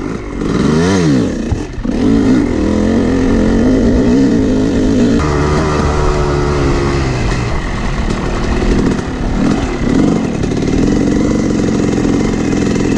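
Yamaha YZ250 two-stroke dirt bike engine revving up and down under riding, its pitch rising and falling repeatedly with throttle and gear changes, with a clear change in engine note about five seconds in.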